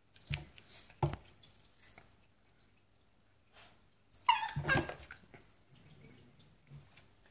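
Border collie and cat play-fighting: two sharp knocks under a second in, then a short, high-pitched cry about four seconds in, the loudest sound.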